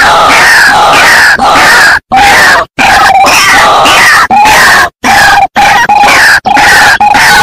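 White-breasted waterhen (ruak-ruak) calls played as a bird-trapping lure: loud, harsh croaking notes repeated without pause. Several brief silences cut them off abruptly.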